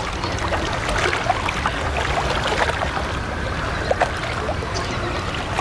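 Riverside ambience: water lapping around moored wooden rowing boats over a steady low rumble, with scattered faint ticks.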